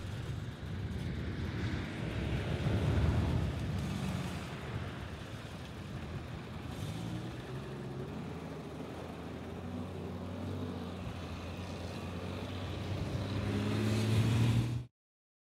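Motor vehicle engines running by a road, with a steady engine note that grows louder near the end before the sound cuts off abruptly.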